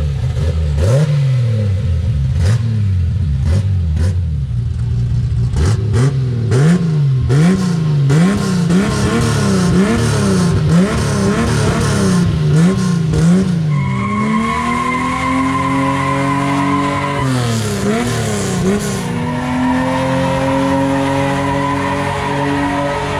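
Chevrolet Opala engine with a loud exhaust being revved hard, blipped up and down in quick succession, with sharp cracks among the early blips. About two-thirds of the way in it is held at high revs for a few seconds with a high steady tone over it, drops, and is held up again near the end.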